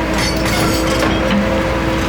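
Hyundai R130 Smart crawler excavator's 94 HP diesel engine running steadily, with a burst of rock crunching and clattering for about the first second.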